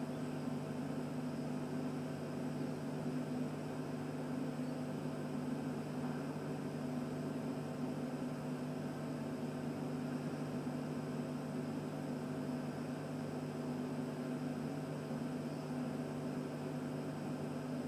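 Steady low hum with a light hiss, unchanging throughout: the room tone of a quiet church with no one speaking.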